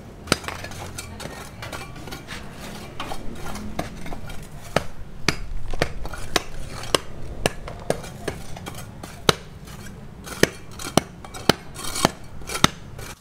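Hand hammer striking a steel chisel held against a concrete floor: sharp metallic clinks, mostly about two a second, with a lull of a few seconds after the first strikes.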